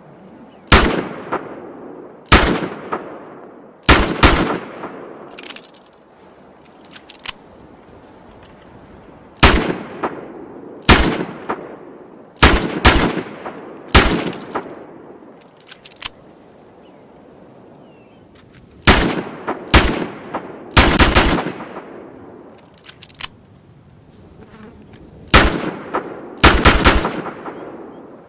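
Smith & Wesson Model 642 snub-nose revolver firing .38 Special rounds: loud single sharp shots, each with a ringing tail, spaced one to a few seconds apart, with some pairs in quick succession. The shots come in groups with longer pauses between them.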